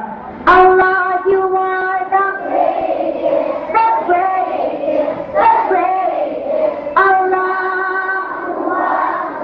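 Children singing a song together in long held notes, a woman's voice among them.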